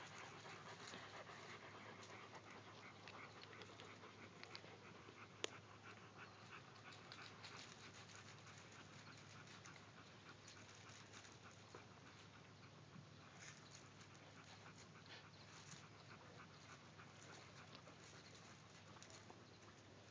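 Adult Shiloh Shepherd panting steadily and faintly, with one sharp click about five seconds in.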